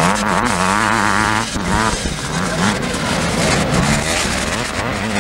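Motocross motorcycle engines revving hard, the pitch rising and falling quickly and unevenly as the riders work the throttle over rough ground.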